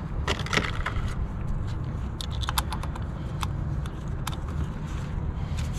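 Light clicks and scrapes of hands handling parts in an engine bay: a plastic spark plug box set on the cowl and a Toyota Corolla ignition coil with a new boot pressed back down into its spark plug well. The clicks come in a short cluster about half a second in and then scattered through the middle, over a steady low background rumble.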